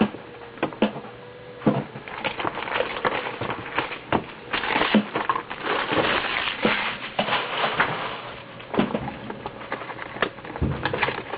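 Trading-card packaging being opened by hand: a dense run of irregular crackling, rustling and sharp clicks as the mini box and its wrappers are handled and torn, busiest near the middle.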